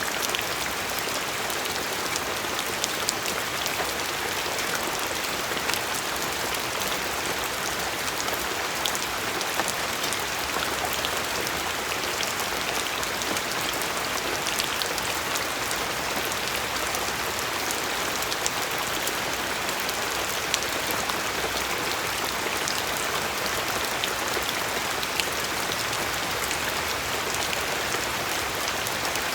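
Steady rainfall, an even hiss of rain with many individual drops ticking sharply on a surface.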